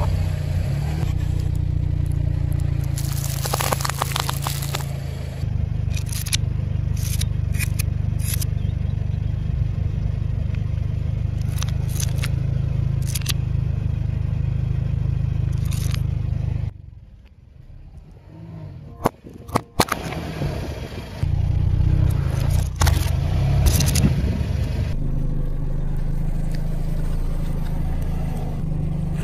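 A car engine idles with a low steady rumble while the tyre rolls over plastic sauce cups and other objects on asphalt, crushing them with crackles, cracks and snaps. Past the middle the engine drops out for a few seconds, leaving only a few sharp clicks.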